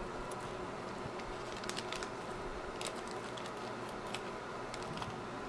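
Steady whir of electronics-bench fan noise with faint steady hum, and a scattering of light clicks and taps, a few of them about two seconds in and near three and four seconds.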